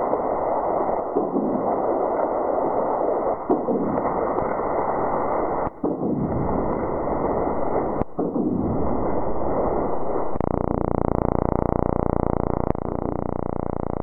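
Seismometer recordings of a mine blast's ground motion, sped up into sound: a rushing hiss that breaks off briefly about six and eight seconds in, then gives way to a steady buzz near the end.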